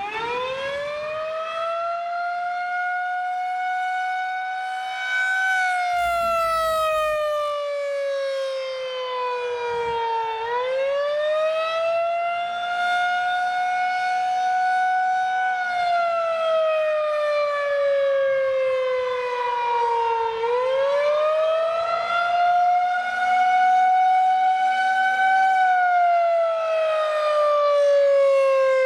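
Federal Signal 2001-130 electronic warning siren sounding a wail on test: it starts up just as the clip begins, then the tone rises for about five seconds and falls for about five, three times over.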